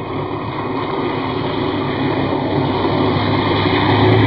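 Redcat Gen8 RC scale crawler driving through mud, its electric motor and gear drive whining steadily and growing louder as it comes closer. Near the end there is a light spatter of mud and grit.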